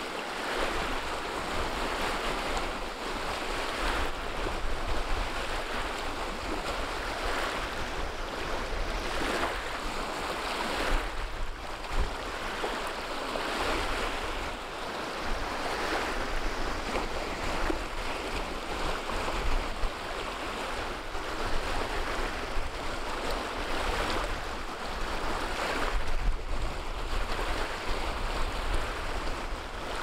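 Small choppy waves washing and breaking on a pebble shore, surging and easing every second or two, with wind rumbling on the microphone underneath.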